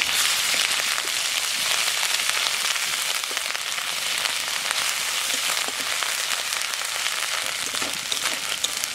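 Ginger-garlic paste frying with onion paste in hot sunflower oil in a metal kadai, stirred with a spatula: a steady, dense sizzle with small crackles that swells right at the start.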